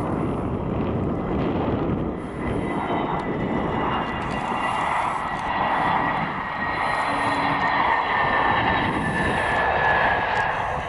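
Airbus A320neo airliner on final approach and flaring to land, its CFM LEAP-1A turbofans at low approach power: a steady loud rushing noise with high whining tones that slowly fall in pitch as it passes.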